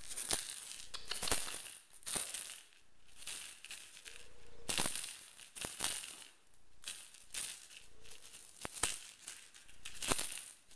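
A cat toy rattling in quick, irregular bursts as kittens bat and pounce at it.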